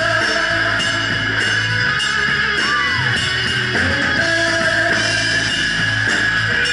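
Live rock band playing loudly: electric guitar, bass and a Ludwig Vistalite acrylic drum kit keeping a steady beat, with a bent guitar note about two and a half seconds in.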